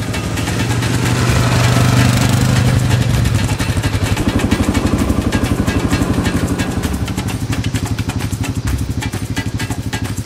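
ATV engine running and revving, loudest about two seconds in.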